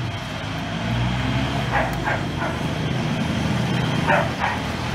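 An engine running steadily with a low drone. A few short calls, likely a dog barking, come about two seconds in and again near the end.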